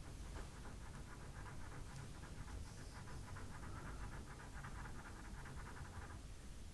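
Faber-Castell Pitt pastel pencil scratching on Pastelmat paper in rapid, short back-and-forth strokes, stopping about six seconds in.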